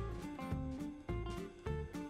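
Instrumental background music with a steady beat, a bass line and a melody moving in stepped notes.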